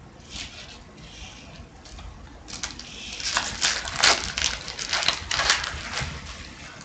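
Trading-card packs and cards being handled: irregular crinkling and rustling, which picks up about two and a half seconds in and goes on in quick, uneven strokes.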